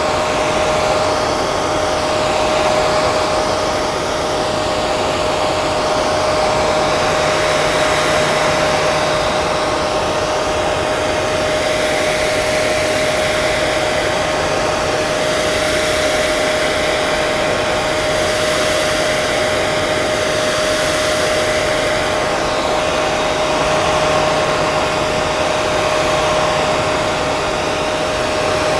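Hair dryer running continuously: a steady rush of air with a constant motor whine.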